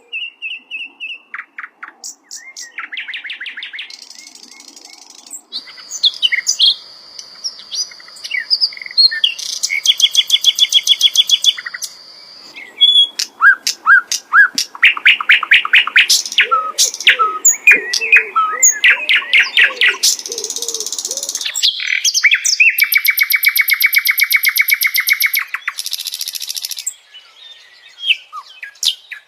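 Sikatan londo, an Indonesian flycatcher, singing a long varied song. It moves through fast repeated trills, a held high whistle, rapid chattering notes and buzzy trills, with only brief pauses between phrases.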